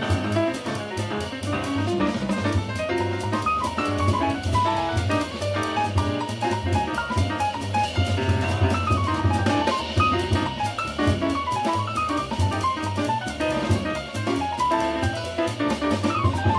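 Live acoustic jazz: a Yamaha grand piano playing quick runs of notes over walking upright bass and a drum kit with cymbals.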